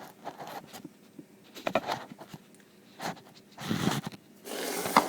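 Kitchen handling noises: a few short scuffs and clicks, then two longer rustling scrapes in the second half.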